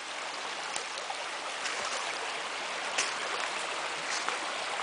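Small creek running over rocks and logs, a steady rushing of water, with a few faint ticks.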